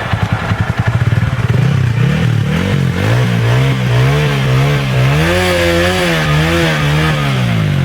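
TVS Apache RTR 200 4V motorcycle's single-cylinder engine running with a fast pulsing beat, then revved up and down repeatedly, its pitch rising and falling.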